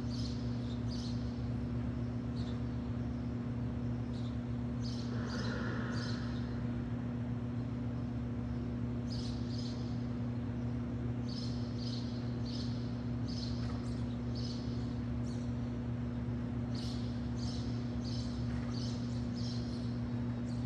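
A steady low electrical hum, with small birds chirping in short high calls that come in clusters on and off.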